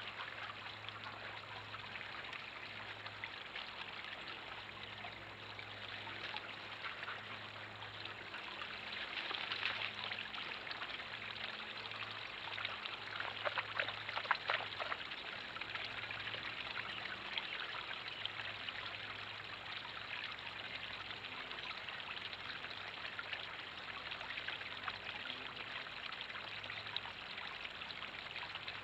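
Small garden-pond waterfall splashing steadily from a spillway into the pond. Around the middle a few sharper splashy ticks come through, where a dog laps at the water.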